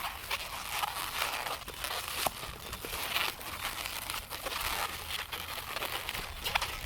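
Latex modelling balloons being handled and twisted: irregular rubbing and crinkling of the rubber with small clicks and a few brief squeaks.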